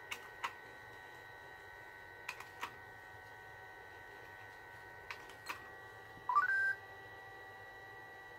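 Sony AIBO ERS-11x robot dog: a few soft clicks, then a short rising chirp of stepped electronic beeps about six seconds in. A faint steady high-pitched whine runs underneath.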